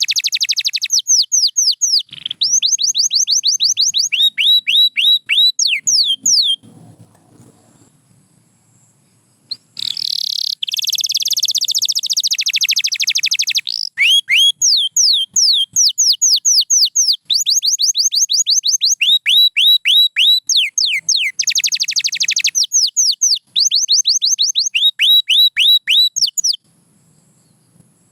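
A domestic canary singing: rapid trills of quickly repeated, downward-sliding high notes, changing from one trill to the next, with a pause of a few seconds about seven seconds in and the song stopping near the end.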